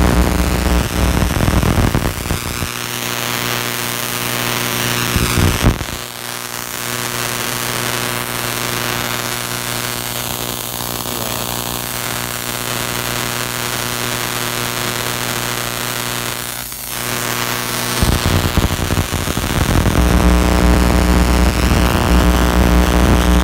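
High-voltage apparatus running with an electrical discharge: a loud steady hiss over a buzzing mains-type hum. The deepest part of the hum drops out about two and a half seconds in and comes back near the end.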